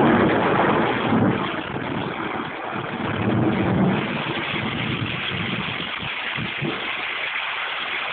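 Very heavy rain pouring down, with runoff water rushing, swelling louder right at the start and again about three seconds in.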